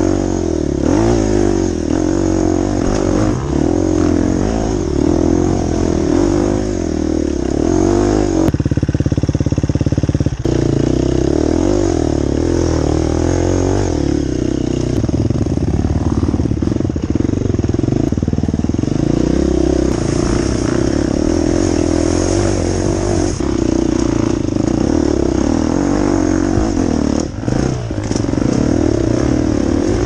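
Dirt bike engine ridden off-road, revving up and down as the throttle opens and closes, with a stretch of steady high revs about eight to ten seconds in.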